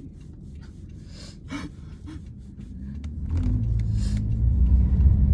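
A person sniffling and taking short, gasping breaths, as though crying, close to the microphone. The car's low engine and road rumble grows louder from about three seconds in.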